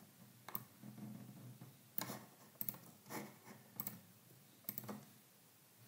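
A handful of faint, separate computer mouse clicks with quiet room tone between them.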